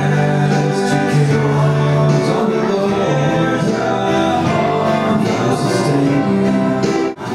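A Christian song with singing over guitar accompaniment, breaking off sharply just before the end.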